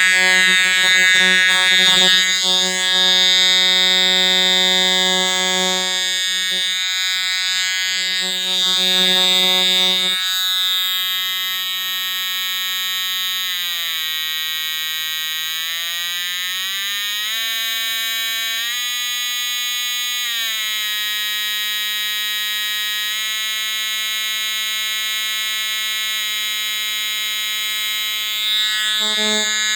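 Edwards/EST 757-1A-H first-generation Integrity remote fire alarm horn sounding a continuous, buzzy, steady tone. About a third of the way in, its pitch dips, climbs a little above where it started, then settles back and holds.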